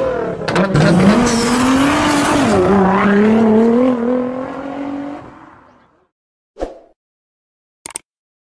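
Performance car engine revving with sharp exhaust pops, its pitch rising, dipping and rising again before it fades away about halfway through. A short thump and then a brief click follow near the end.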